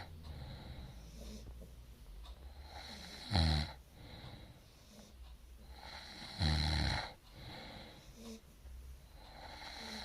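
Sleeper snoring: two loud, short, low snores about three seconds apart, with quieter breathing between them.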